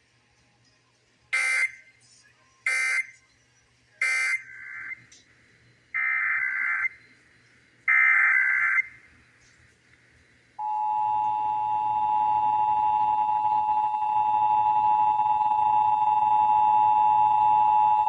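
Emergency Alert System broadcast: five short bursts of screechy digital data tones (the SAME header), then about 10.6 s in the steady two-tone EAS attention signal begins and holds loud to the end.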